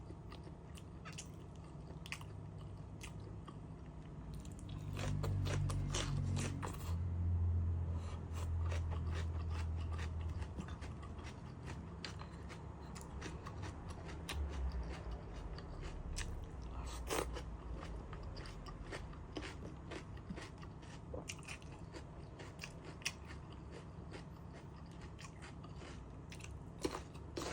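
Close-up mukbang eating: biting and chewing with many small crunches and wet clicks. A low rumble rises for several seconds near the middle.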